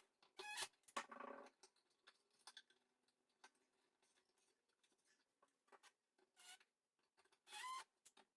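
Mostly near silence, broken by a cat's short meows, one about half a second in and another near the end, with a brief rustle and a few faint clicks between.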